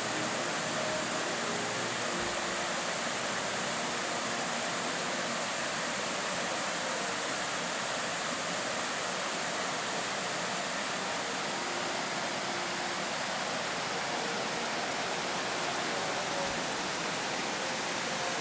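Steady, even rush of flowing water, a constant hiss with no breaks.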